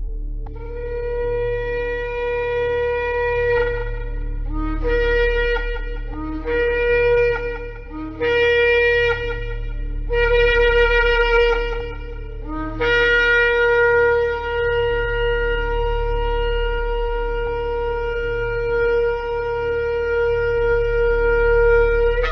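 Shofar (ram's-horn trumpet) blasts: one long note, then four shorter blasts that each start low and jump up to the main pitch, then a very long held note from about 13 seconds in. A low steady hum runs underneath.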